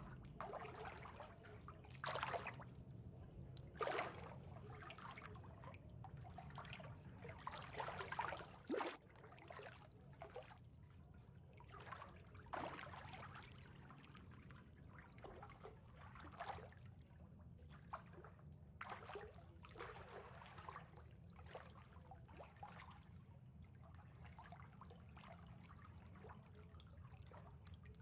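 Faint water trickling and lapping, with small irregular splashes that are strongest in the first several seconds and then soften, over a low steady hum.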